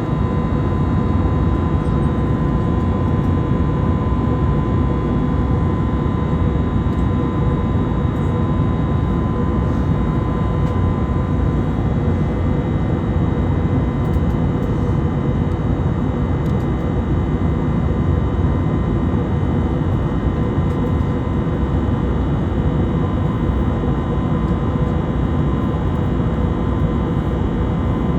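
Cabin noise of an Airbus A320neo from a window seat: steady jet engine and airflow noise with a steady whine, holding an even level throughout.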